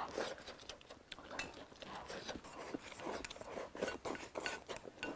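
A person eating from a bowl with chopsticks: soft, irregular chewing and slurping with small clicks of the chopsticks against the bowl.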